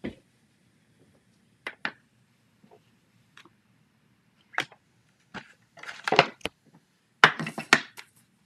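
Irregular clicks, knocks and rustling as stamp sets are handled and searched through, with a denser rustle of handling about six seconds in and again near the end.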